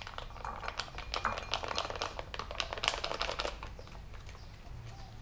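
Foil pouch of wet cat food crinkling and crackling as it is squeezed out over a bowl: a quick run of small clicks and rustles that eases off after about three and a half seconds.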